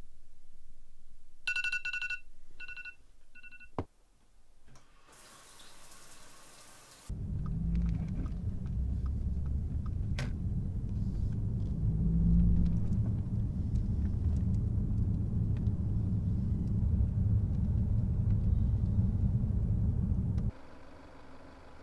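Steady low rumble of a car being driven, heard from inside the cabin. It starts about a third of the way in and cuts off shortly before the end. Before it come three electronic beeps, one long and two short, then a click and a few seconds of hiss.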